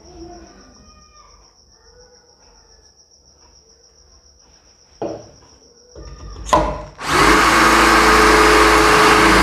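Bosch GSB 180-LI 18 V cordless drill starting about seven seconds in and running steadily as a 5 mm bit bores into an oiled iron pipe. Before it there are faint handling sounds, a thin steady high whine, and a sharp knock about five seconds in.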